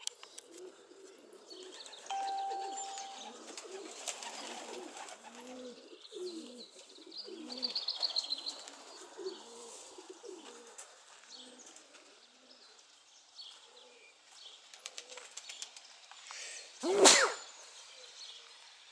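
Domestic racing pigeons cooing over and over, with small birds chirping. A short steady tone sounds about two seconds in, and a loud brief whoosh comes near the end.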